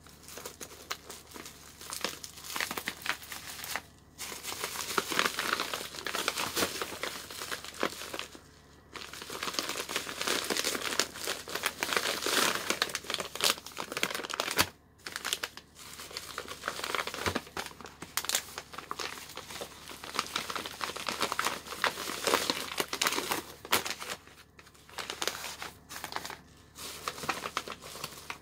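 Bubble wrap and plastic packaging crinkling and crackling as a parcel is unwrapped by hand, in irregular spells with brief pauses.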